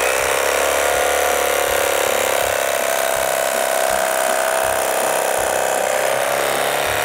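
Cuisinart CEK-30J electric carving knife running at a steady pitch, its motor driving the serrated reciprocating blades as they slice through a block of ham.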